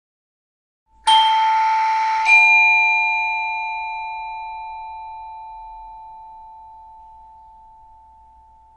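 Two-tone chime doorbell striking a ding-dong: a higher note about a second in, a lower note just over a second later, then both ringing out and slowly fading over several seconds.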